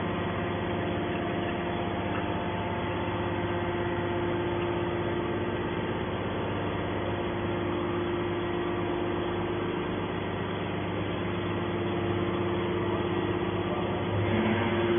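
Hydraulic can baler's electric motor and pump running with a steady, even hum at a constant pitch.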